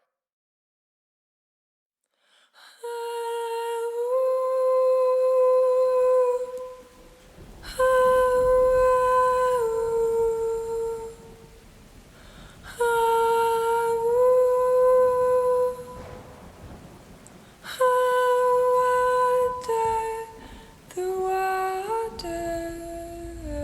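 Silence for about two seconds, then wordless vocal humming from the soundtrack music: long held notes in four phrases with short pauses between them, moving to shorter, stepping notes near the end.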